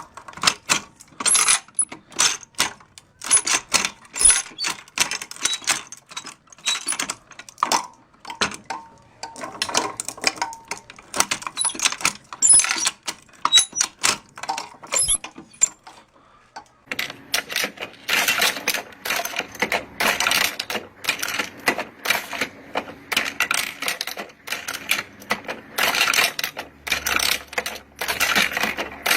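Hand-operated ammunition belt loader being worked: irregular metallic clicks and clacks as cartridges are pressed into the belt links. Busier from about halfway, over a faint steady low hum.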